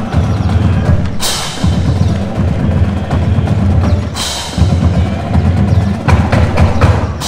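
Marching band drumline playing a loud cadence: bass drums and snares drumming steadily, with a cymbal crash about a second in and another about four seconds in, and a run of sharp hits near the end.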